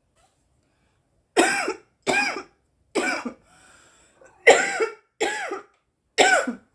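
A girl coughing six times in two sets of three, with a faint breath drawn between the sets.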